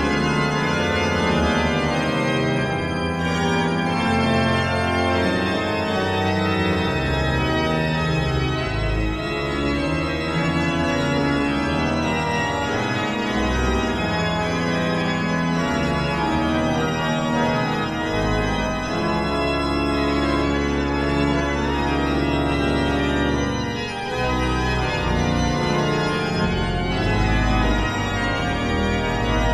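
Pipe organ playing sustained chords over low held pedal notes, the harmony changing every second or two.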